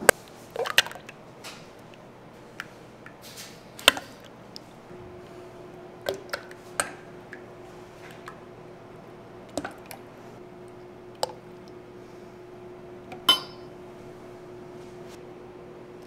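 Bakery kitchen work: scattered clinks and knocks of utensils and pans, about a dozen, the loudest near the start and about four seconds in, over a steady low hum.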